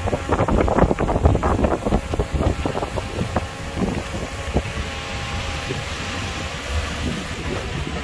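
Diesel engine of heavy earthmoving machinery running steadily. A quick run of clanks and knocks sounds over it for the first few seconds, then dies away about halfway through.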